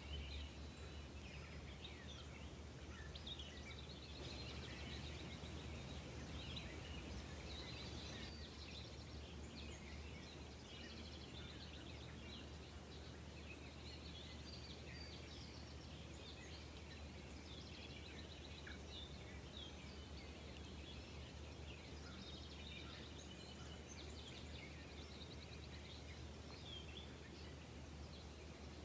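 Faint birdsong: several birds chirping and trilling in short, high phrases throughout, over a low steady hum.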